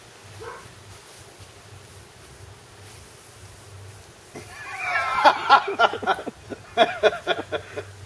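Weimaraner puppies yapping at a bird pulled on a cord. A drawn-out high yelp starts about four and a half seconds in, followed by a quick string of short yips, about four a second, that stops just before the end.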